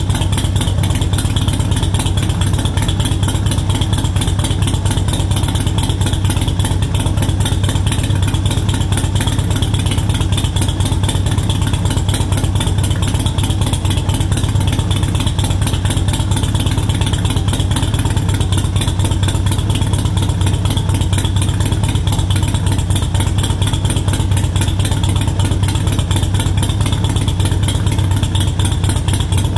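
2018 Harley-Davidson Sportster Iron 883's air-cooled V-twin idling steadily through Cobra Speedster Short exhaust pipes, on an ECU tune set to a low 800 rpm idle.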